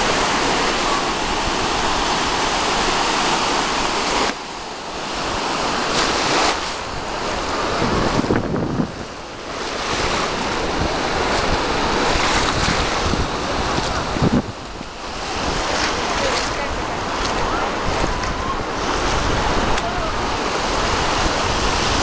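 Small Black Sea waves breaking and washing up on a sandy shore in a steady hiss, with wind buffeting the microphone in a low rumble.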